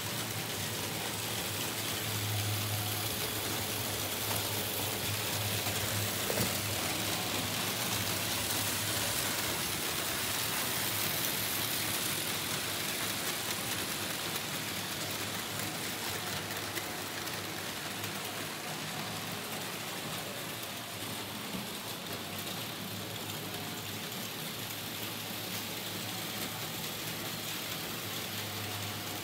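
Märklin H0 model trains running on metal M-track: a steady rattle of wheels over the stamped-metal rails, with a low hum underneath.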